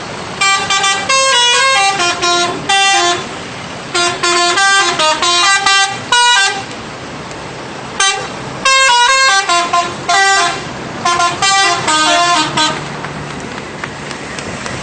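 An Indonesian bus's 'telolet' horn, a multi-tone air horn, playing loud melodic runs of quick, shifting notes. It sounds in four bursts, with short pauses between them.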